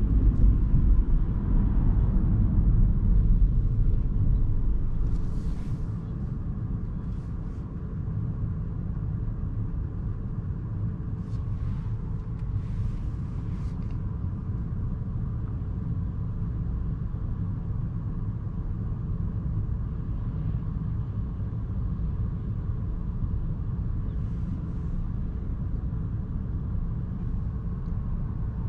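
A 2021 MINI Cooper S E Countryman plug-in hybrid driving, heard as a steady low road and drivetrain rumble with a faint even hum. It is louder for the first few seconds, then drops and stays even, with a few faint short high ticks now and then.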